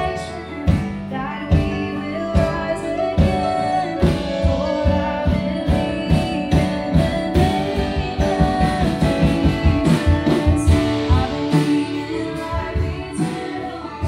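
Live worship band playing: singing over acoustic and electric guitars, with a drum kit keeping a steady beat from inside a clear acrylic drum shield. It measures about 88 to 90 dB on a sound level meter in front of the stage.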